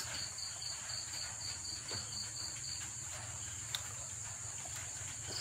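Crickets chirping: a steady high trill with a second, pulsed chirp repeating about five times a second, over a low steady hum.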